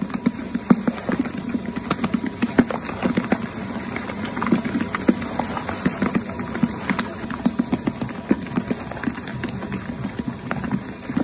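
Electric mochi-making machine kneading mochi: its motor hums steadily while the ball of dough slaps and thumps against the bowl, several soft, unevenly spaced beats a second.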